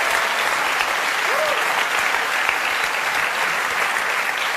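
Studio audience applauding steadily, the clapping easing off slightly near the end.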